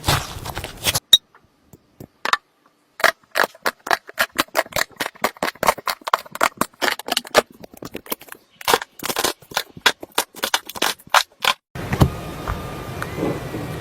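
Slime being squeezed and poked, making a rapid run of sharp clicks and pops, several a second, after a brief pause near the start. Near the end the clicking stops and a steady background hiss takes over.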